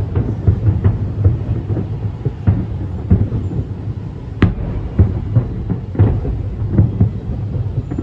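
Fireworks bursting in quick, irregular succession: deep booms with a rolling rumble between them and sharp cracks. The sharpest crack comes about halfway through.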